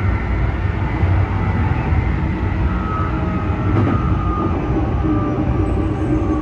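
Keikyu 1000 series commuter train running, heard from inside the leading car: a steady rumble of wheels on track under faint traction-motor whine tones, with one sharp click about four seconds in. This set is known for unusually loud, abnormal motor noise.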